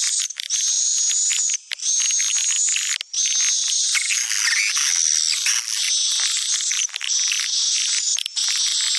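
Swiftlet lure call (suara panggil walet): a dense, continuous, high-pitched twittering and chirping of edible-nest swiftlets, played back to attract swiftlets into a nest house.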